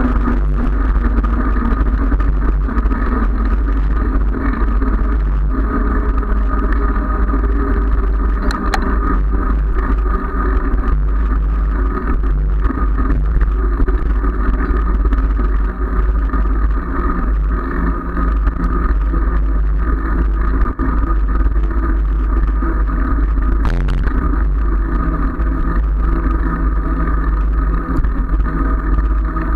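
Steady wind rush and rumble on a handlebar-mounted camera's microphone while riding a road bike, mixed with the hum of the tyre on asphalt. A couple of sharp clicks come through, about nine seconds in and again near 24 seconds.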